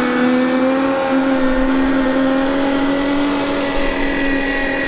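Corded electric lawn scarifier running at full speed, its motor giving a steady whine as it is pushed over artificial turf.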